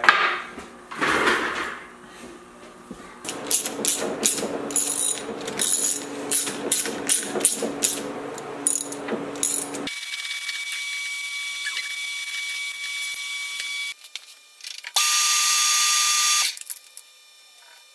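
Metal lathe at work: a run of sharp metallic clicks and clanks around the three-jaw chuck for the first several seconds, then the spindle running with a steady whine. Near the end a louder rushing noise lasts about a second and a half before it drops back to a quiet hum.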